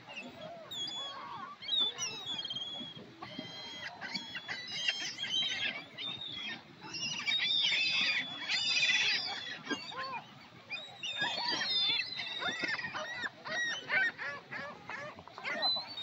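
A flock of gulls calling, many short overlapping squawks that thicken into a dense clamour near the middle and again a few seconds later.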